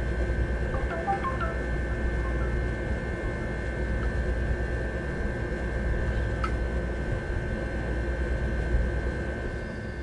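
Steady background hum with a constant high-pitched whine, a few faint short beeps about a second in, and a single click about six and a half seconds in.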